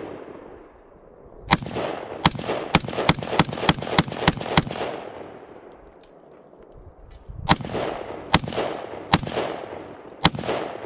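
A gun firing in quick succession: a string of about nine shots roughly three a second, a pause, then four more shots spaced about a second apart. Each shot has a long echoing tail.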